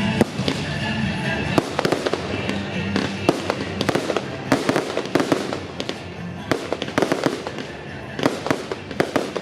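Fireworks display: a rapid, irregular run of bangs and crackles from shells bursting overhead, with music playing underneath, clearest in the first few seconds.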